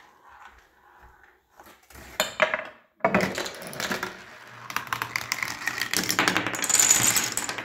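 A homemade Rube Goldberg machine running: a short clatter about two seconds in, then from about three seconds a dense run of clicks and rattles as wooden blocks topple and small balls roll and knock through plastic and wooden tracks.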